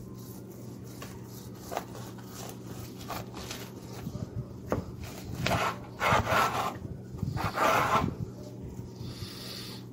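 A long carving knife sawing back and forth through a crusty roast beef on a wooden cutting board, the blade rasping through the crust. A few light clicks come first, then louder, longer sawing strokes from about five to eight seconds in.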